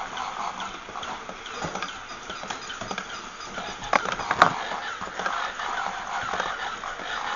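Battery-operated walking toy animal running: the clatter of its small motor and gear mechanism, with wavering squeaks and a few sharp knocks about four seconds in.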